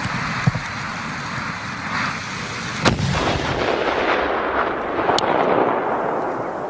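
A large firecracker burning with a steady hiss, then going off with one sharp bang about three seconds in, followed by a slowly fading rush of noise with a few small cracks.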